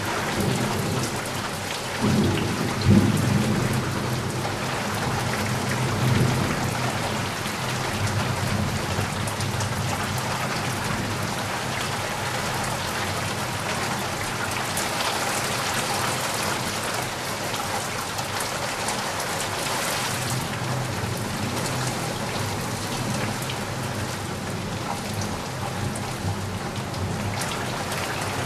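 Steady rain falling, with low rumbles of thunder swelling about two to three seconds in and again near six seconds.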